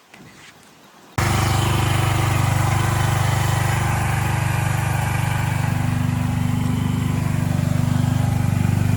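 Mini skid steer's engine running steadily at a constant speed, starting abruptly about a second in.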